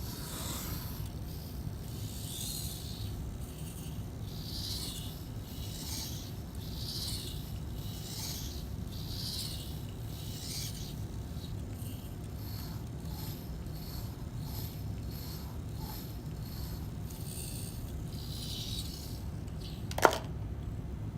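Pencil point driven by a Robix robot arm scratching across paper in short strokes, roughly one a second, over a steady low hum. One sharp click near the end.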